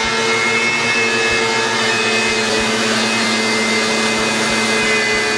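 DeWalt DW735 benchtop thickness planer, fitted with a Byrd Shelix helical carbide-insert cutterhead, running steadily while it planes a board. A smooth, even sound that holds its speed under the cut, at about 82 dB on a meter.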